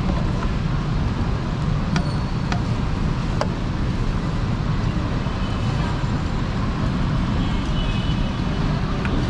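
Steady, dense background din of a busy street food market with a strong low rumble. A few light metallic clicks come about two to three and a half seconds in, from utensils and waffle irons being handled.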